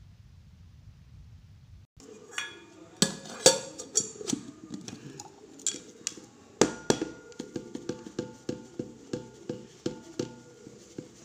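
Lidded stainless-steel container of green chillies being shaken and handled, starting about two seconds in: a string of sharp metallic knocks and rattles with a ringing steel tone. The knocks settle to about three a second and stop shortly before the end.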